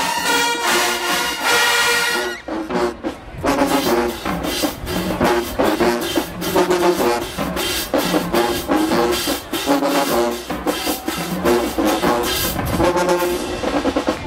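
Marching band brass and drums playing: held brass chords, a short break about two seconds in, then punchy brass stabs over steady drum hits.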